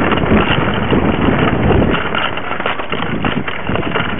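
Mountain bike ridden over a rough dirt track, heard from a camera mounted low on the bike: a steady clatter of small knocks and rattles over tyre rumble, with wind buffeting on the microphone heaviest in the first two seconds.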